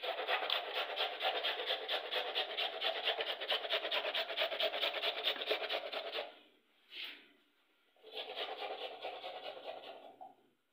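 Carrots being grated by hand on a metal grater: rapid, even rasping strokes for about six seconds, one short scrape after a pause, then a second run of grating near the end.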